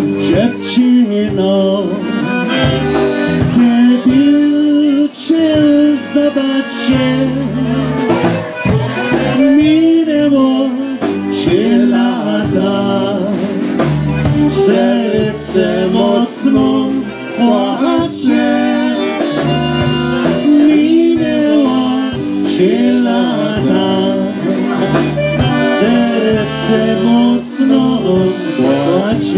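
Live polka band playing: accordion with electric bass and a drum kit keeping a steady beat.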